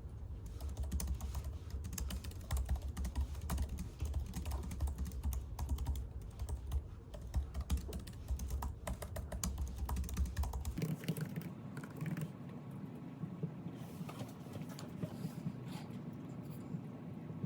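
Typing on a computer keyboard: a steady, uneven run of quick key clicks, over a low background hum that drops out about eleven seconds in.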